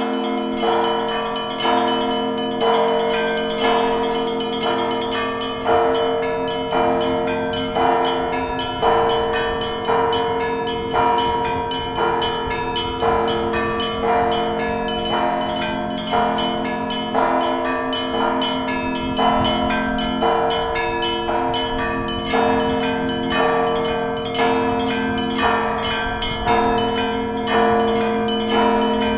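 Russian Orthodox church bells (kolokolny zvon) ringing in a steady peal. Several bells of different pitches are struck together about once a second over the continuous low hum of a large bell.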